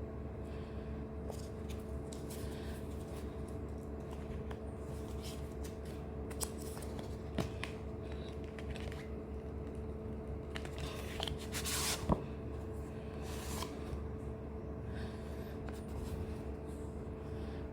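Light handling sounds: scattered rustles and scrapes with a few sharp clicks, the loudest click about twelve seconds in, over a steady electrical hum.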